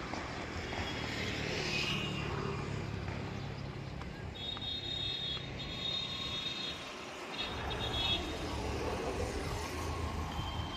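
Outdoor ambience with a motor vehicle's engine running as a steady low rumble. A high, steady tone sounds a few times in the middle.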